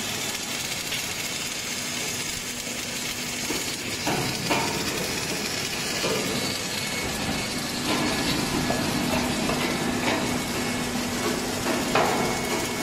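Arc welding on an H-beam welding machine: a steady hiss from the welding torch running along the flange-to-web seam, over a low steady machine hum. Several short knocks come in from about four seconds on.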